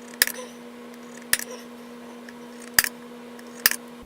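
Center punch marking screw holes through a hinge into cherry wood: four sharp metallic strikes, spaced about a second apart, over a steady low hum.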